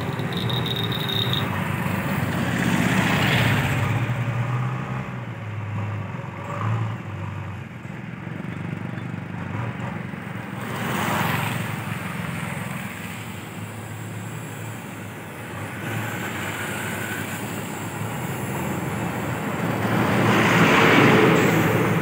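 Steady diesel engine hum of a JCB 3DX backhoe loader at work, with passing road traffic swelling up and fading three times, a motorcycle going by close about eleven seconds in.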